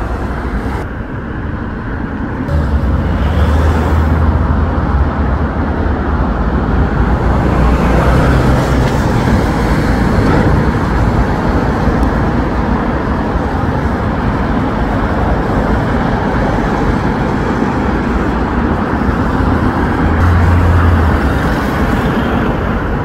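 Road traffic driving past close by: cars and vans, a continuous engine rumble. The rumble swells heavier about three seconds in and again near the end.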